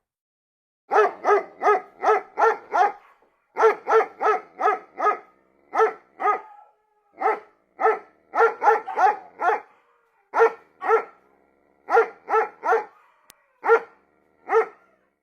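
A dog barking in quick runs of several barks, each run followed by a short pause.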